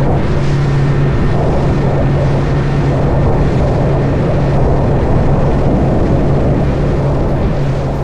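Robalo R160 center-console boat underway: its outboard motor running steadily at cruising speed, a constant low hum, under a loud, even rush of wind and water past the hull.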